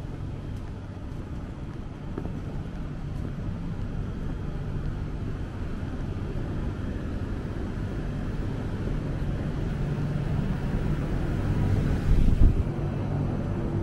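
A motor vehicle's engine running with a steady low hum, growing gradually louder, with a brief louder thump near the end.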